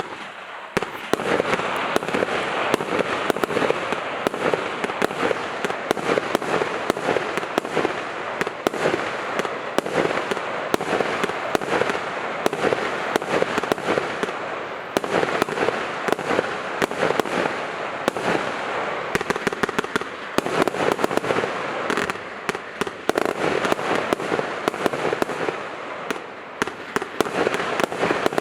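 Katan X901 Tornado firework burning with a continuous loud hiss and dense, rapid crackling that runs on without pause, easing briefly a couple of times.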